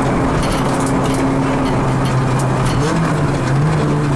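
Rally car's engine running at low, steady revs, heard from inside the cabin over road and tyre noise, with a small rise in revs about three seconds in.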